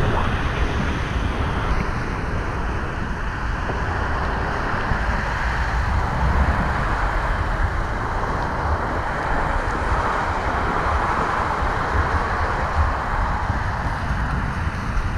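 Steady rush of wind on the microphone of a moving vehicle at road speed, over a low rumble of engine and road noise.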